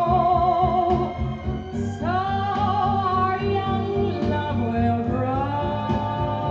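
A woman singing a pop ballad with orchestral accompaniment, played from a 78rpm record. She holds long notes with vibrato and starts a new phrase about two seconds in.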